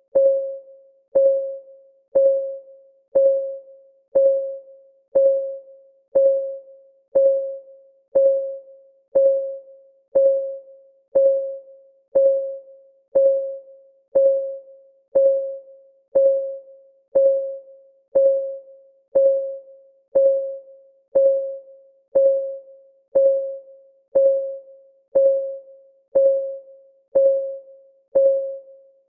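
Countdown timer's ticking sound: one short, pitched tick every second, even and unchanging, each ringing briefly and fading before the next.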